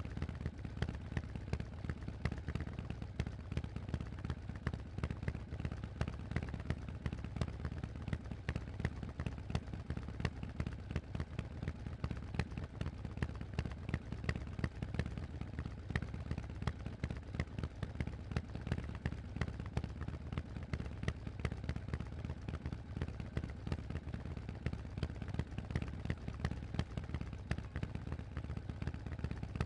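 Harley-Davidson Forty-Eight's air-cooled 1200 cc V-twin running steadily through a Vance & Hines aftermarket exhaust, a fast, even string of sharp exhaust pulses over a deep rumble.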